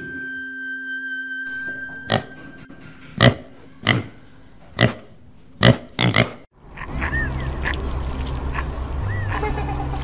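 Wild boar piglets giving short, sharp grunts and squeals, about seven in four seconds. Music follows near the end.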